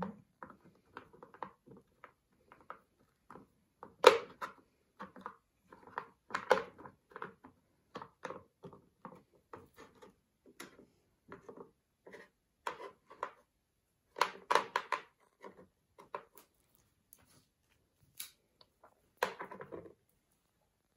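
Painted sea pebbles clicking and knocking against one another and the tray as they are picked up, slid and set in place by hand. The taps are irregular, with a few sharper knocks among them.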